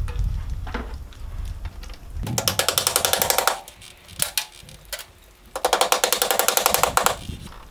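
Two bursts of rapid rattling clicks, each about a second and a half long, as a hammer works thin aluminum fascia trim to fold its end over.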